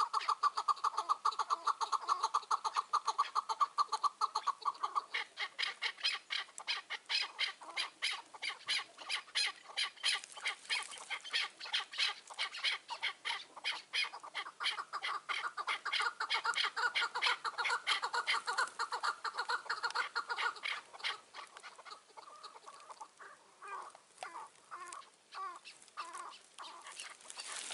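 Chukar partridge calls: a long run of rapid, rhythmic chuck notes that thins out about three-quarters of the way through into scattered separate calls.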